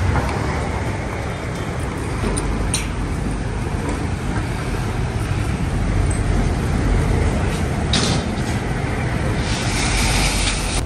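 Roadside traffic: buses and other vehicles passing with a steady engine and tyre rumble. A couple of sharp clicks, and a hiss near the end.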